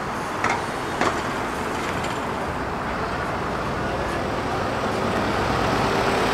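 City bus driving slowly past close by over steady street traffic noise, growing slightly louder near the end. Two short clicks about half a second and a second in.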